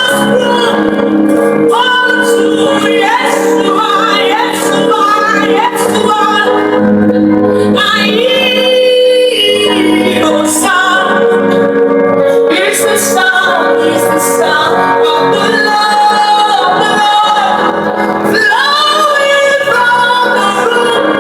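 Gospel worship music with a woman singing a long, melismatic, sustained vocal line over steady sustained chords.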